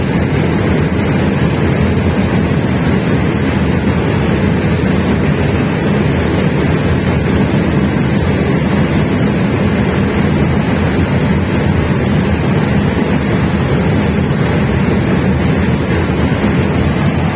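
A 500 kVA diesel generator running steadily and loudly, a dense low rumble. A thin high whine rides over it, stepping up in pitch about a second in and again midway, then sliding back down near the end.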